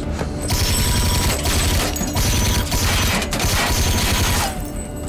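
Automatic gunfire from a police drone in several long bursts, with rounds striking and sparking off a metal dumpster. It starts about half a second in and stops near the end.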